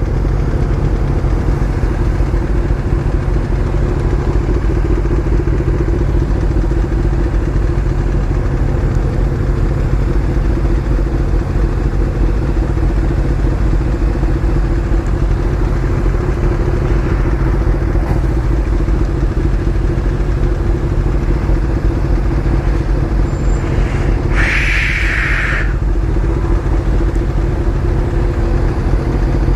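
Motorcycle engine running steadily at an even pitch, with no revving and a heavy low rumble throughout. A short hiss breaks in near the end.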